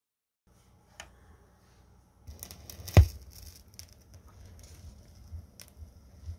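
Turntable stylus set down on a vinyl record with a sharp thud about three seconds in. It is followed by the record's surface noise in the lead-in groove: light hiss with scattered clicks and pops over a low rumble, with no music yet.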